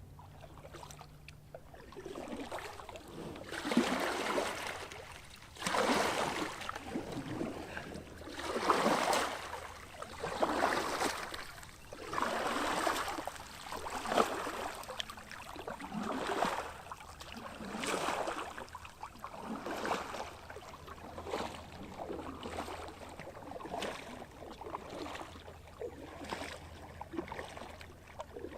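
Paddle strokes in calm water: a swishing splash about every two seconds, louder in the first half and softer later on.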